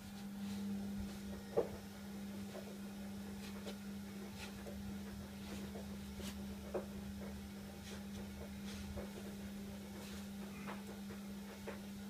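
Scattered light taps, clicks and rubs of a cloth and fingers working over the plastic grille of a kitchen exhaust fan, over a steady low hum.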